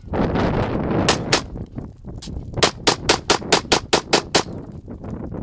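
Pistol fired from the hip at close range: two shots about a second in, then a rapid string of about ten shots at roughly five a second.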